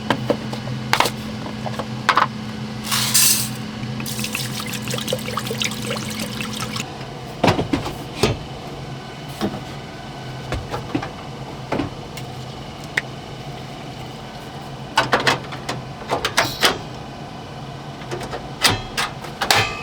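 Water poured into a cooking pot, among scattered clanks and knocks of pots and utensils. A low steady hum stops about seven seconds in.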